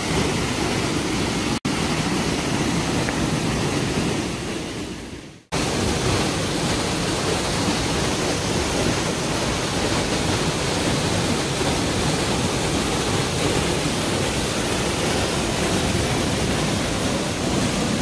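Two waterfalls plunging over rock into a shallow pool: a steady rush of falling water. It drops out for an instant about a second and a half in, then fades away and comes back abruptly about five and a half seconds in.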